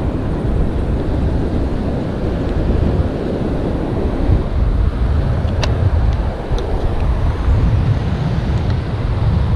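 Strong wind buffeting the microphone, with breaking surf behind. A sharp click a little past halfway and a fainter one about a second later.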